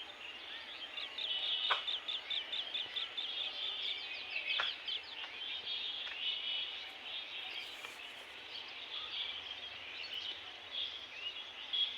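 Birds chirping and twittering in rapid runs of short high notes, strongest in the first half, over a steady outdoor ambience with a few sharp clicks.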